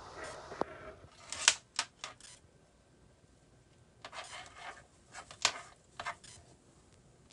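Power cables and a splitter being handled and plugged together, giving rustles and sharp plastic clicks. There is a rustle at the start, a few sharp clicks around a second and a half in, and another cluster of rustling and clicks from about four to six seconds in.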